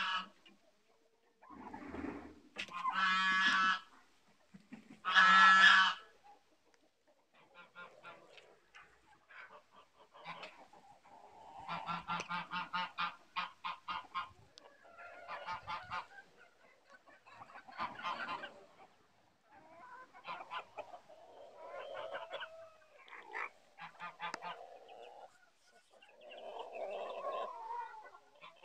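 Domestic geese honking, three loud calls in the first six seconds, followed by quieter mixed calling and clucking of farmyard poultry.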